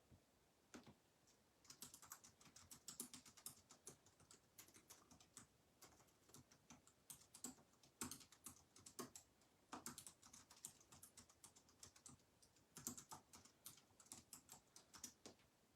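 Faint typing on a computer keyboard: rapid clicks in flurries with short pauses between them.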